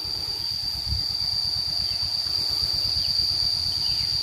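A steady, high-pitched insect drone, one unbroken tone, over a low rumble.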